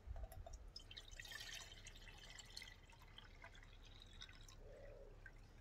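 Faint pouring of cold water from a plastic measuring jug into an anodised aluminium camping pot, with light trickling and drips.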